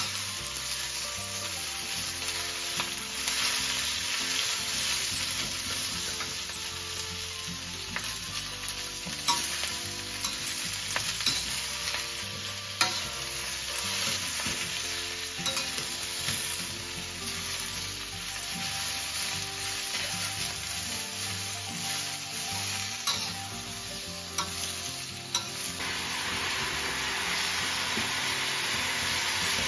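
Cabbage sizzling as it is stir-fried in a steel wok over a gas flame, with scattered clicks of metal tongs against the wok. Near the end the sizzle grows louder as vegetable broth is poured in.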